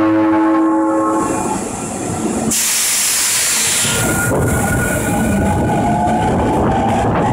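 Osaka Metro Midosuji Line 21 series subway train sounding a steady horn for about the first second, then a burst of hiss a few seconds in, then running past with wheel rumble and a motor whine that rises slowly in pitch as it gathers speed.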